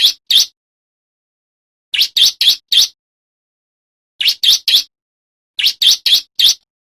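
Male bar-winged prinia (ciblek) singing: phrases of three or four quick, high chirps, repeated about every two seconds with silence between.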